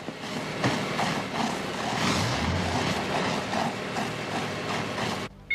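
Fire hoses spraying foam in a steady rushing hiss, with irregular mechanical clattering underneath. It cuts off suddenly near the end.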